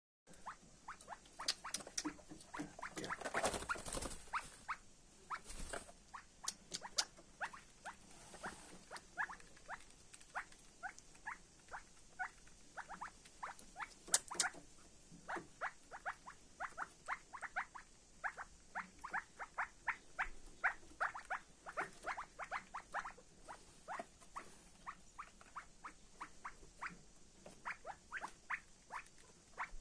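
Five-week-old partridge chicks peeping: short, high peeps, about two or three a second, kept up throughout. A brief louder rustling noise comes about three seconds in, and a sharp click near the middle.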